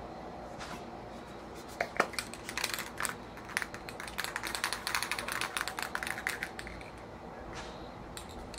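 Aerosol spray paint can being shaken, its mixing ball rattling in rapid, irregular clicks for about five seconds, starting with a sharp click about two seconds in.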